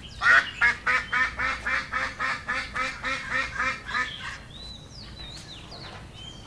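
Domestic ducks quacking in a rapid run, about four quacks a second, for about four seconds before they stop.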